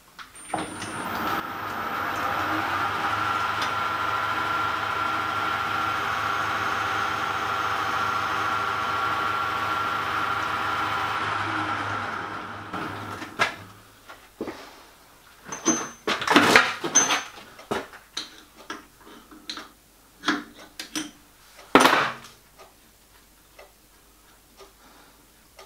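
Metal lathe starting up and running steadily with a hum and a high whine while it skims a graphite-filled PTFE piston ring on a mandrel to its finished diameter. It is switched off about eleven seconds in and spins down. After that come a few sharp metallic clicks and knocks as the clamp and parts are handled.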